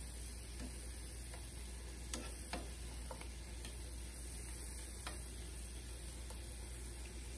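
A few sharp, light clicks of metal kitchen tongs against a nonstick frying pan as pieces of chicken are turned, over the faint steady hiss of the chicken frying.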